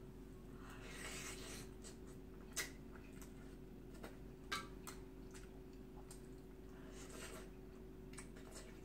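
Quiet eating: slurping and chewing of soaked soup greens, with two sharp clinks of metal chopsticks against a stainless steel bowl about a third of the way in and about halfway. A steady low hum lies under it.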